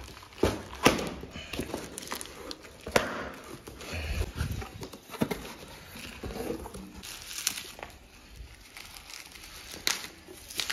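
Unboxing a cardboard parcel: cardboard tearing and a bubble-wrapped tub being pulled out, the plastic wrap crinkling, with sharp crackles and knocks scattered throughout.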